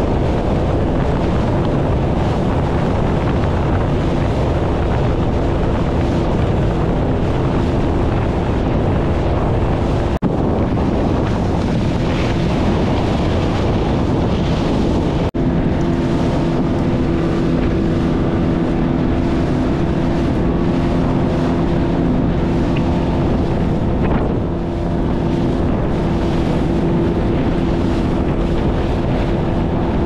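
Motorboat engine running steadily under way, with wind buffeting the microphone and water noise from the hull.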